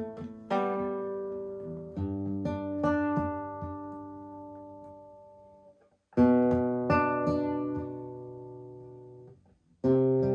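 Nylon-string classical guitar played solo: chords and single notes left to ring and die away, with two brief pauses, about six and nine and a half seconds in, each followed by a fresh chord.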